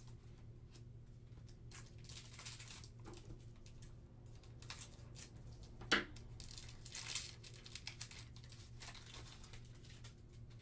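Glossy trading cards rustling and sliding against each other as they are shuffled in nitrile-gloved hands, in short bursts, with a sharp click about six seconds in and a few smaller clicks after it.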